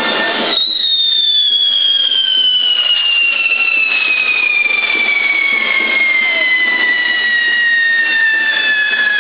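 Fireworks on a toro de fuego frame: a loud pyrotechnic whistle starts about half a second in and falls slowly and steadily in pitch, over the hiss of spark-spraying fountains.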